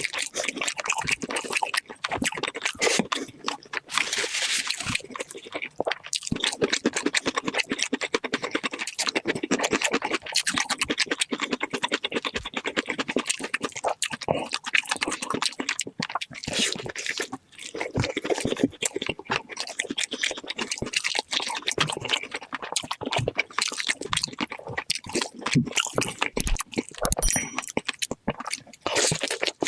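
Close-miked mukbang eating sounds played back at double speed: rapid, dense crunching and chewing.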